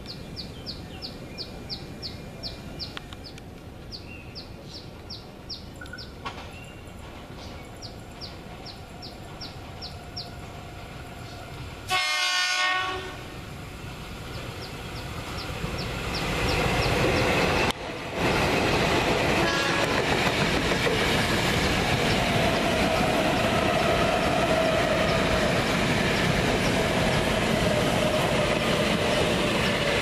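A Tokyo Metro 6000-series KRL electric train (set 6001F) sounds its horn once, for about a second, about twelve seconds in; this set's horn differs from the other ex-Tokyo Metro trains. The train then comes up and passes close by, with loud, steady wheel and rail noise to the end. Bursts of high, rapid chirping come before the horn.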